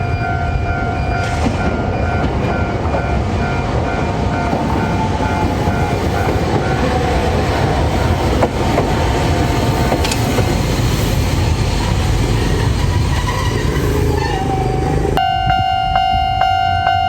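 Toden Arakawa Line tram running through a level crossing, a heavy steady rumble, with the crossing's electronic warning bell pulsing at the start. About two seconds before the end the rumble drops away abruptly, leaving only a clean, evenly pulsing bell tone.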